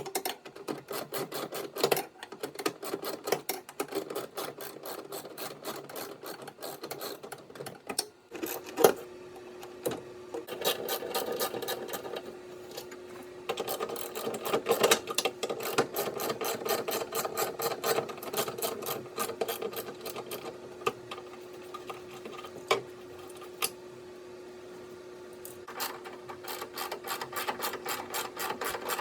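Hand ratchet with a 10 mm socket on an extension clicking rapidly as a nut is run off, in runs with short pauses. A faint steady hum comes in about nine seconds in.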